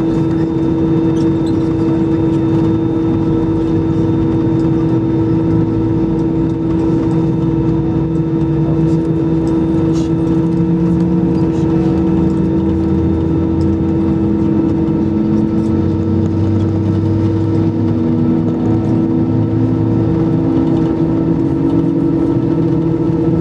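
An Airbus A320's CFM56 jet engines run at taxi power, heard from inside the cabin over the wing. The sound is a loud, steady whine over a low rumble, with a faint tone slowly rising in pitch through the second half.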